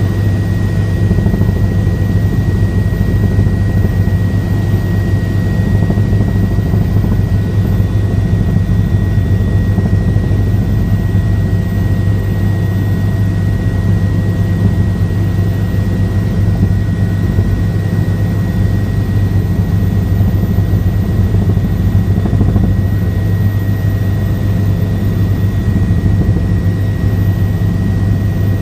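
Helicopter in flight, heard on board: a loud, steady drone of rotor and engine with a constant thin high whine above it.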